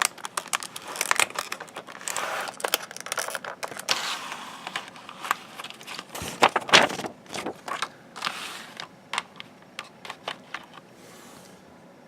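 A precision screwdriver set and its plastic packaging being handled: rustling and scraping with a run of clicks and clacks, loudest about six to seven seconds in, thinning out near the end.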